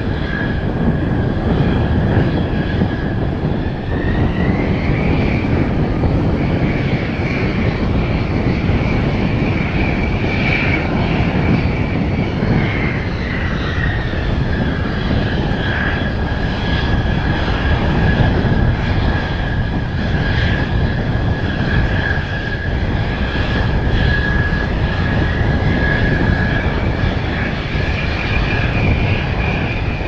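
Mitsubishi F-2 fighter's General Electric F110 turbofan running at taxi power: a steady high jet whine over a low rumble. The whine rises in pitch about four seconds in, falls back around the middle, and rises again near the end. Strong wind buffets the microphone.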